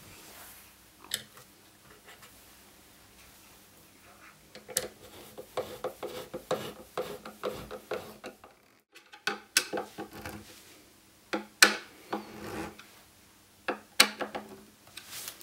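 Metal screwdriver scraping and picking at the rim of a woofer's frame and perished foam surround: irregular scratchy strokes in a busy run from about a third of the way in, then spaced sharp clicks toward the end.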